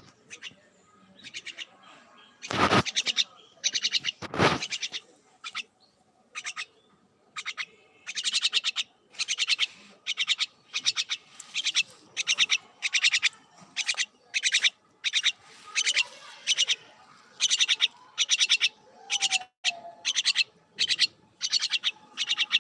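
A bird calling over and over in short, rapidly pulsed trills, many in quick succession, with two loud knocks a few seconds in.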